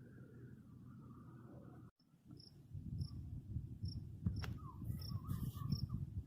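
A cricket chirping in a regular rhythm, short high chirps a little under twice a second, starting after a cut about two seconds in. Under it runs a louder low rumbling noise.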